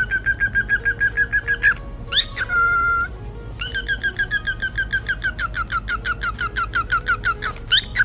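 Cockatiel chirping in a fast run of short, repeated chirps, about six or seven a second. The chirping breaks off for a single held whistle about two seconds in, then starts again and runs until near the end.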